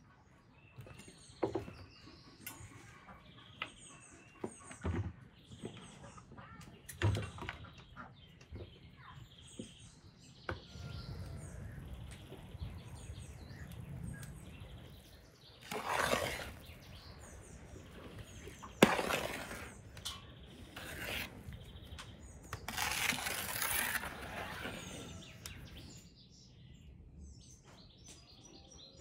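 Birds chirping, with scattered sharp clicks and knocks from hands working bowls of fresh cherries. Partway through there are a few louder noisy bursts, the sharpest about two-thirds of the way in.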